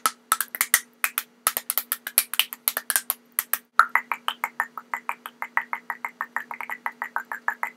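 Rapid clicking noises made with the mouth, a few clicks a second at first, then, after a short break about four seconds in, a faster, more even run of about eight clicks a second. A steady low hum lies under the clicks.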